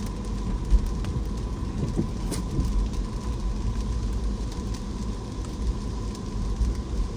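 Car driving in the rain: a steady low rumble of the car on the road, with rain falling and scattered short ticks of raindrops.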